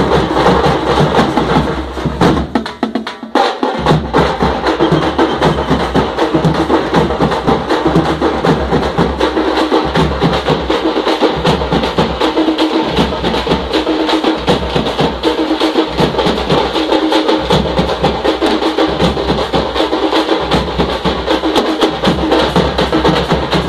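A band of tamte, large South Indian frame drums beaten with sticks, playing together in a fast, dense rhythm. The playing drops off briefly about two seconds in, then comes back in full, with a pattern that repeats about every second and a half.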